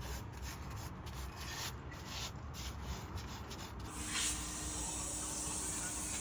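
Steady abrasive rubbing, like sanding or scraping by hand. About four seconds in it changes to a brighter hiss with a faint steady hum underneath.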